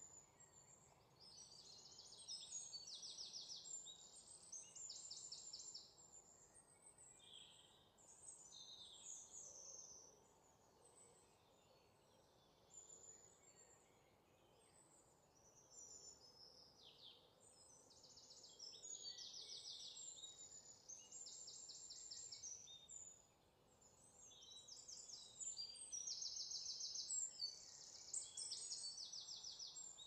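Several songbirds singing, with high, rapid trills and chirps overlapping one another over a faint steady outdoor hiss. The song thins out for a few seconds near the middle, then picks up again.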